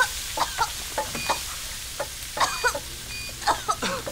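Food sizzling in a frying pan while a spatula stirs and scrapes it, giving short squeaky scrapes every third to half second.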